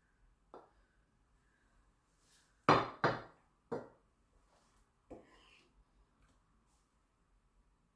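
Wooden spoon and china plate knocking against a frying pan and countertop while shrimp are served: about five short, sharp clacks, the loudest a quick double knock about three seconds in.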